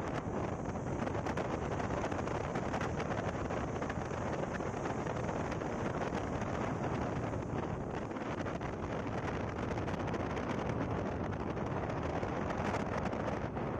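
Steady wind noise rushing over the microphone, with no breaks or distinct events.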